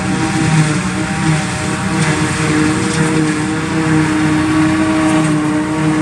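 Self-propelled forage harvester chopping grass and blowing it into a truck trailer running alongside: a loud, steady machine drone with several held tones over a constant rush, the truck's engine running with it.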